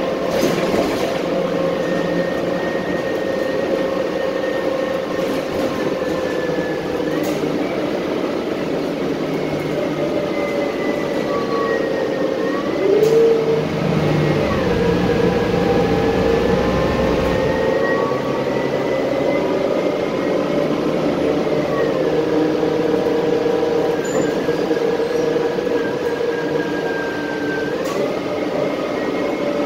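Transit bus driving, heard from inside the passenger cabin: steady engine and drivetrain noise, with a whine that rises and falls as the bus speeds up and slows, and a few brief rattles.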